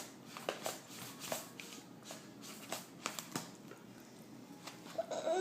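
Faint scattered clicks and rustling, then a young child's voice starting just before the end.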